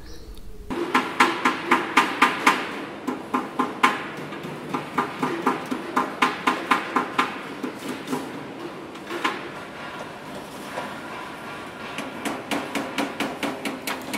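Repeated sharp metallic strikes with a ringing tone, like hammering on metal, about three to four a second. They begin just under a second in, ease off briefly around ten seconds, then resume.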